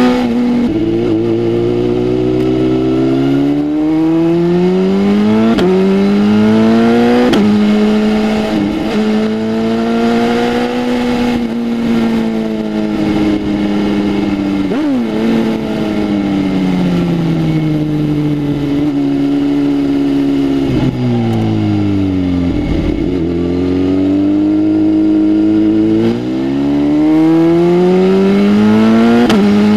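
BMW S1000RR inline-four on a full exhaust system, accelerating hard through the gears with quick-shifter upshifts, each shift a sudden drop in pitch before it climbs again. About halfway the revs fall away slowly as the bike slows, then it pulls up through several gears again near the end.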